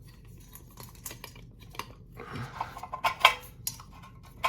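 Metal ceiling-fan down rod and hardware clinking and rattling as they are handled. There are scattered light clicks, then a busier run of sharp clinks with a brief metallic ring a little past the middle.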